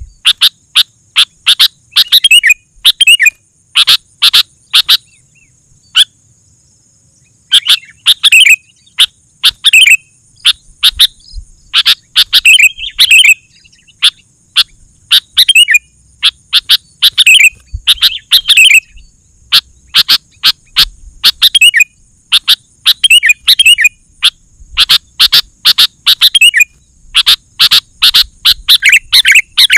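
Sooty-headed bulbul singing loudly: quick bursts of short, bubbling chirps in repeated phrases, with a pause of about two seconds a few seconds in.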